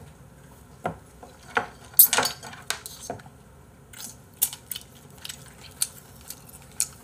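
Scattered light clicks and taps from eating and handling small things at a table, with a louder cluster of clicks about two seconds in.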